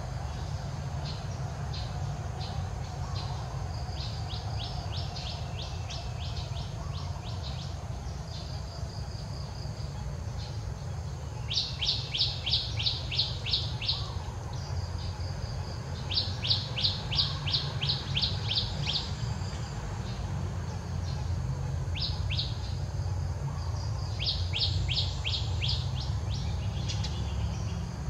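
A bird calling in runs of quick down-slurred high notes, about three a second, each run lasting two to three seconds and repeated several times, over a steady low outdoor rumble.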